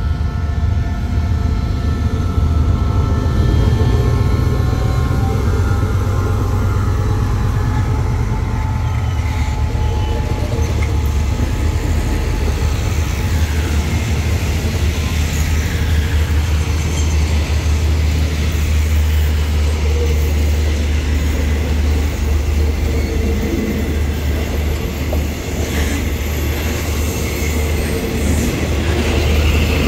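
Diesel-electric locomotive passing close by, its engine running, then a long train of passenger coaches rolling past on the curve with a steady low rumble of wheels on rail.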